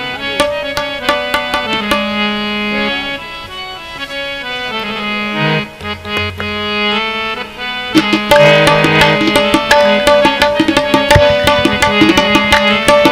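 Harmonium playing a sustained melody while a tabla keeps time with sparse strokes; about eight seconds in the tabla strokes grow dense and the music gets louder.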